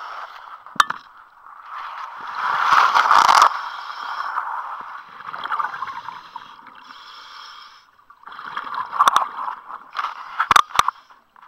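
Scuba diver breathing through a regulator underwater: repeated gurgling bursts of exhaust bubbles, each a second or two long, with short lulls between them. A few sharp clicks, mostly near the end.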